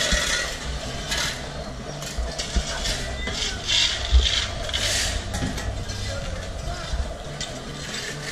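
Metal shovels scraping and scooping elephant dung off packed dirt, a series of rough scrapes every second or so, with people talking in the background.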